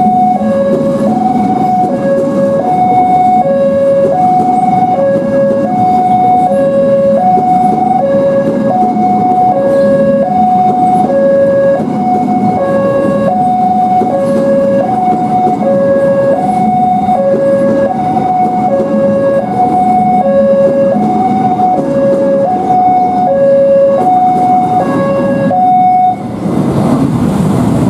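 Railway level crossing warning alarm sounding an electronic two-tone signal, a high and a low note alternating about every half second, until it cuts off a couple of seconds before the end. A steady low rumble runs underneath.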